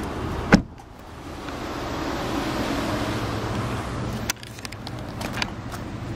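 A sharp thump about half a second in, then a car driving past, its road noise swelling and fading over about three seconds before cutting off sharply with a click; fainter traffic noise and small handling clicks follow.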